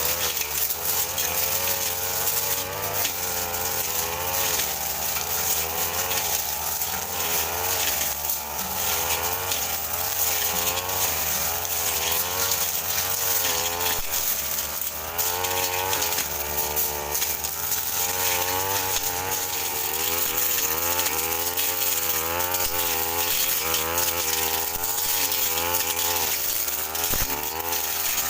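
Petrol brush cutter running hard, its engine pitch wavering up and down continually as the blade cuts through mixed scrub and alang-alang grass.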